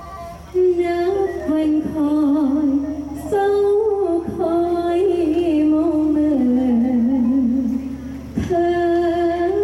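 A likay actress singing a melody into a handheld microphone, with long held notes that waver in pitch. She sings in three phrases, with short breaks about three seconds in and near the end.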